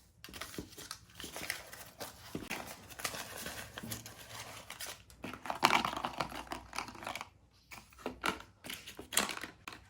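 Plastic snack packets crinkling and rustling as they are handled, in irregular crackly bursts, loudest about halfway through and again near the end.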